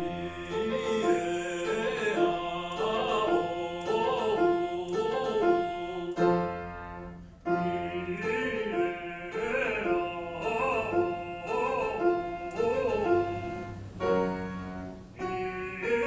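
Operatic voice singing a vocalise exercise with vibrato over piano accompaniment, in repeated short phrases with a held piano chord between them. It is a lyric-singing exercise for covering the tone in the high register.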